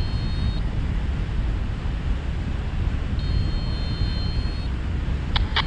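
Airflow buffeting the microphone during a paraglider flight, a steady low rumble. A faint high, steady double tone sounds for about a second and a half midway, and a few sharp clicks come near the end.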